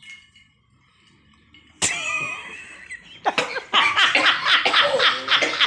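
A person's voice breaks out suddenly about two seconds in, then turns into hearty laughter, a quick run of 'ha' pulses about four a second that gets louder near the end.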